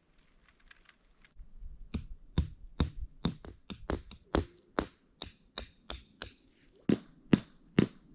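Rapid, evenly repeated striking blows, about two to three a second, each hit with a short high ring, like a tool driving into something hard.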